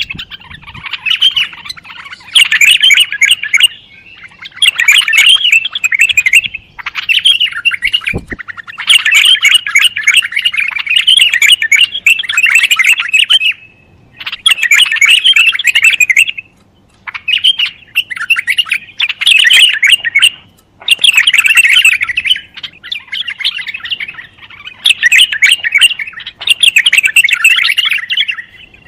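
Bulbul singing in rapid, chattering phrases of one to three seconds, repeated again and again with short pauses between them.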